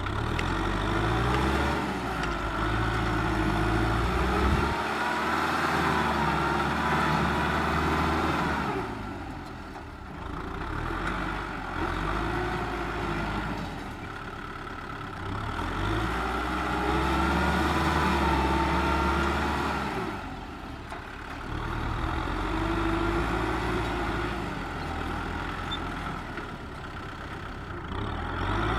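Kubota M6040SU tractor's diesel engine working under load while pushing soil with a front blade. Its pitch and loudness rise and fall in long cycles, easing off about every ten seconds.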